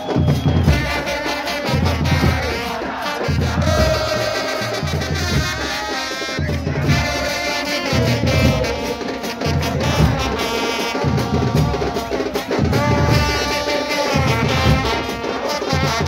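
A supporters' terrace band of trumpets and bass drums playing a chant tune, the drums pounding out a steady beat about once a second under the brass melody.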